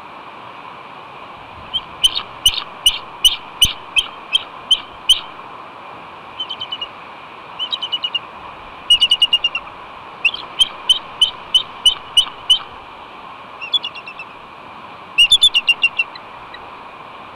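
Bald eagle on its nest giving bouts of high, piping chattering calls, short notes about three a second in repeated series, over a steady hiss. The calls are her signals for help to her mate while crows try to steal her egg.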